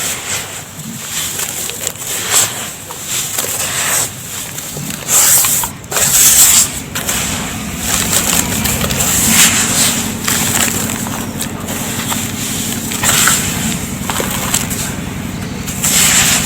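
Dry red dust being poured and mixed in a tub: a steady gritty hiss with several louder crumbly surges.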